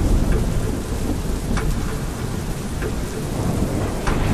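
Steady heavy rain with a low rumble of thunder, a few sharp drop crackles standing out, the rumble swelling near the end.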